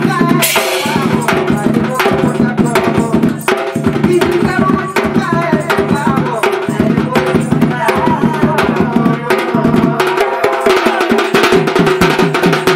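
Live folk dance music: a two-headed barrel drum (dhol) beaten in a fast, dense rhythm, with a singing voice above it through a microphone and PA.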